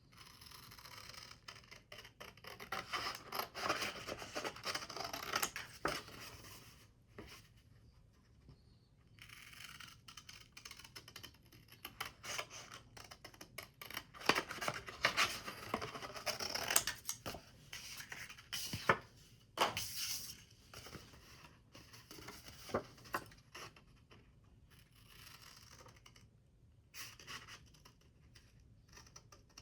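Paper being handled and cut with scissors: scratchy rustling and scraping in bursts, broken by sharp clicks.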